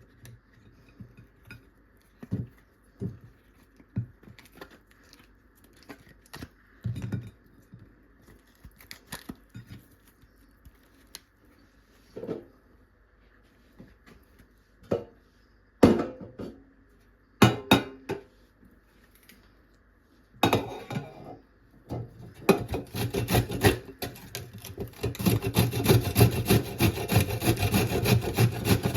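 Food preparation on a wooden cutting board: scattered knocks and clatters of a knife and kitchen things, then, about two-thirds in, a long run of rapid knife strokes chopping on the board.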